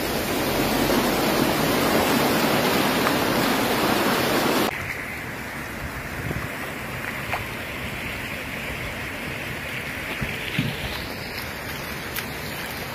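Muddy floodwater rushing loudly in a steady torrent; about five seconds in it drops abruptly to a quieter, steady flow of water with a few faint ticks.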